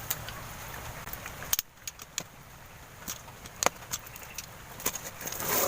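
A package being opened and handled by hand: scattered sharp clicks and light rustles of packaging, a dozen or so at irregular intervals.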